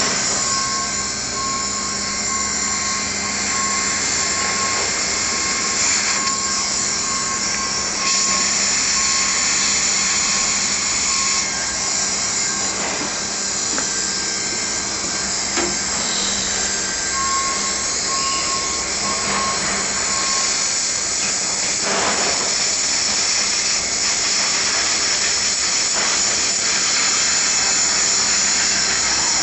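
Hand-held hot-air welder blowing steadily, a constant fan-driven hiss, as PVC roofing patches are heat-welded onto the membrane.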